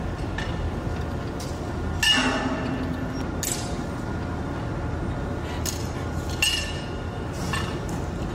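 Crane hook and wire-rope slings clinking and clanking against steel coils as they are rigged for lifting: several sharp metallic hits with a brief ring, the loudest about two seconds in. A steady low machinery hum runs underneath.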